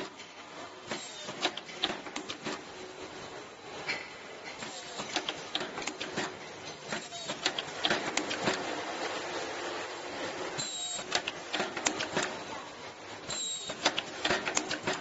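Semi-automatic KN95 mask earloop welding machine running: an irregular clatter of clicks and knocks from its pneumatic mechanism, with a few brief high tones in the second half.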